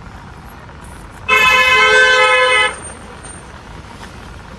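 A car horn sounding once in a steady two-tone blast of about a second and a half, starting just over a second in.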